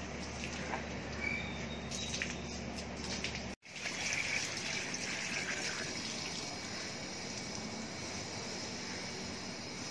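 Water from a garden hose pouring into a plastic bucket, gushing and splashing as the bucket fills and spills over. It comes in after an abrupt break a little over three seconds in, loudest just after.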